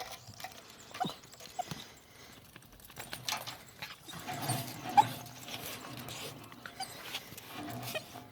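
A dog making short, scattered sounds among light clicks and knocks, the sharpest about five seconds in.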